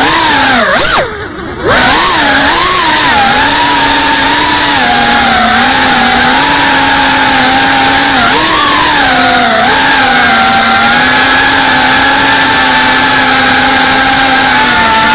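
Brushless motors and propellers of a GEPRC CineLog35 FPV cinewhoop drone whining loudly, heard from the camera on the drone itself. About a second in, the pitch swoops down and the sound briefly drops away, then climbs back. After that it holds a steady whine that shifts with throttle, with a short rise in pitch near the middle.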